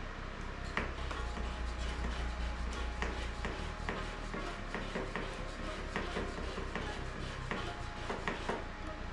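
Hand-operated siphon pump being worked to draw gasoline out of a motorcycle's fuel tank, each stroke giving a sharp click or knock, irregularly about once or twice a second, over a steady low hum.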